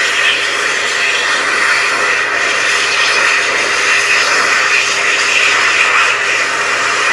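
Excel Xlerator high-speed hand dryer fitted with the 0.8 nozzle, running: a loud, steady rush of air with a faint steady motor tone beneath it.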